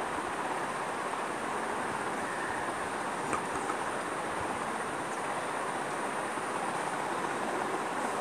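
Steady rushing background noise with a faint high whine above it and a couple of faint clicks.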